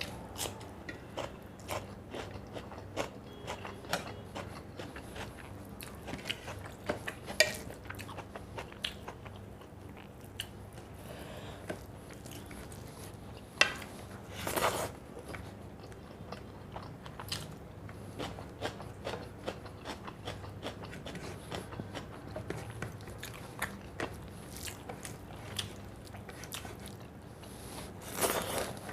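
Close-miked eating: steady chewing and biting with frequent small crunches and mouth clicks, and two longer, louder noisy bursts, one about halfway and one near the end.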